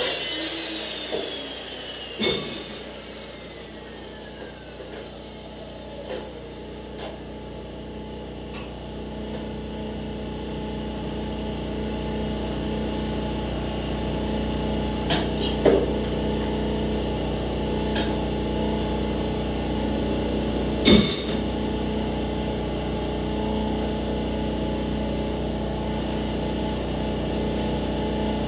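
Cold-cut chop saw winding down after a cut through steel round bar, a falling whine over the first few seconds. Then a few sharp metallic clanks of steel pieces (about two seconds in, twice around fifteen seconds, once around twenty-one seconds), over a steady hum that slowly grows louder.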